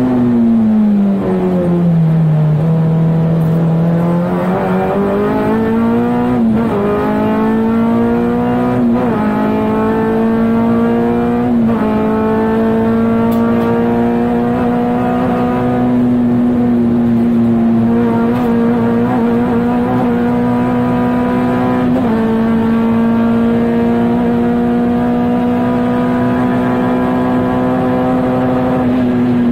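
K24-swapped 1996 Honda Integra DC2 Type R four-cylinder race engine, heard from inside the car at racing speed. The revs drop about a second in, climb back through three quick upshifts, then hold high and nearly steady for the rest, with a brief dip a little past two thirds of the way through.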